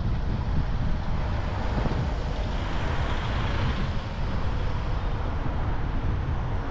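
Toyota RAV4 driving along, a steady haze of tyre and road noise with low wind rumble on the microphone.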